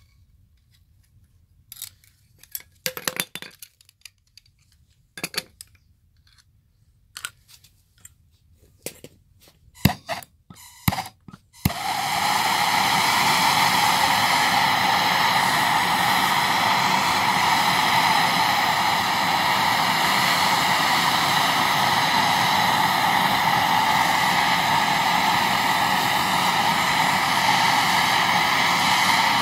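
Scattered clinks and knocks of tools and copper fittings being handled, then a few sharp clicks and, about twelve seconds in, a MAPP gas torch lights and burns with a steady loud hiss as it heats a copper fitting for soldering.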